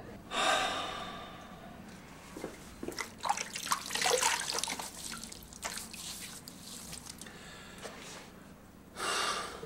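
Water splashing and dripping in a bathroom sink as someone washes blood from his hands and neck, with a cluster of splashes in the middle. A louder rush of sound comes just after the start, fading over a second or so, and a shorter one near the end.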